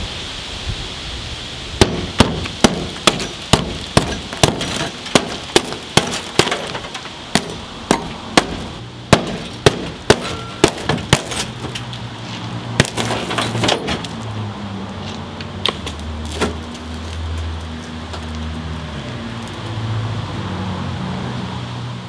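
Hammer blows breaking out the old windshield glass of a 1956 Volkswagen single-cab pickup: about twenty sharp strikes, two or three a second, with glass cracking and clinking, thinning out after about fourteen seconds. A low steady hum runs through the second half.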